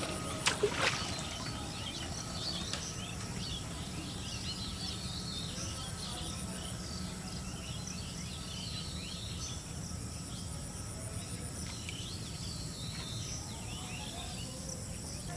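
Many birds chirping in quick short calls over a steady insect drone and a low background rumble. Two or three sharp clicks come just under a second in.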